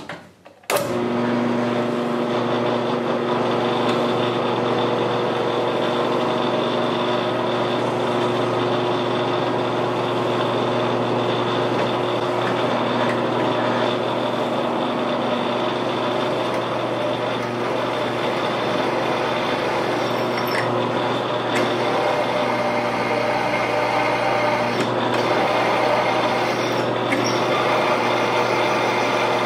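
Jet JMD18 mill-drill starting up about a second in, then running steadily while drilling into a quarter-inch steel plate.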